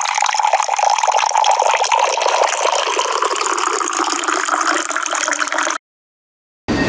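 A steady rushing noise like gushing water, which cuts off suddenly about six seconds in.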